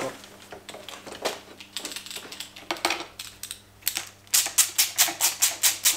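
Ratchet wrench tightening handlebar clamp bolts: soft scattered tool clicks at first, then from about four seconds in a steady run of sharp clicks, about five a second.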